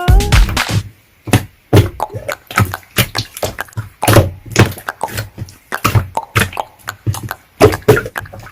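Hand-played slime being squeezed and pressed, giving an irregular run of quick clicks and pops, several a second, as trapped air bursts.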